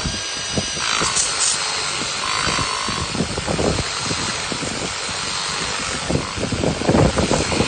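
A mrliance 40V cordless electric pressure washer spraying on its steady-stream setting: a steady, even hiss of the water jet, with irregular spattering where the water hits.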